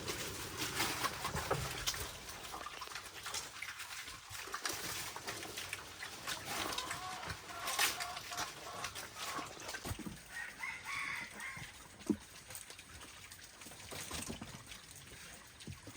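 Chickens clucking and calling, with scattered knocks and clatter.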